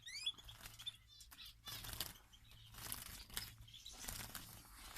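Small caged finches (greenfinch, goldfinch and linnet) fluttering inside a wire trap cage, in several bouts of wing-flapping and rustling. There are a few short rising chirps near the start.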